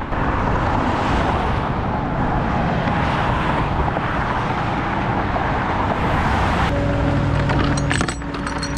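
Steady rush of highway traffic going by. About seven seconds in it switches to the steady hum of a truck engine running, with a few metal clinks of a tow chain being handled near the end.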